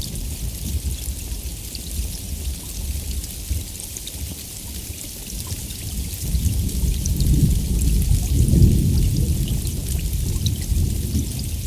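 Steady heavy rain with scattered pattering drops, and a low rumble of thunder that swells about halfway through, peaks, then eases off.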